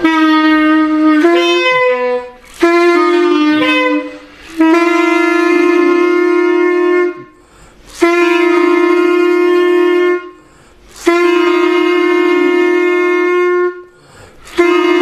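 Clarinet blown on its open note with no keys pressed: six long held tones, each a couple of seconds, with short breaths between. The pitch wavers in the first few seconds and then holds steady, as in a beginner's tone-production practice.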